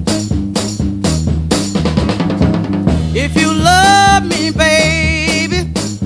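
Instrumental intro of a blues band recording. A drum kit keeps a steady beat over a bass line, with a quick drum roll about two seconds in. Then a lead instrument comes in playing bent notes with vibrato.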